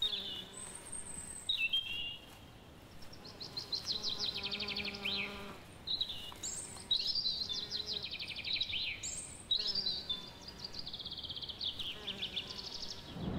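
Woodland birdsong: several small birds singing high, fast trills and chirped phrases, one after another.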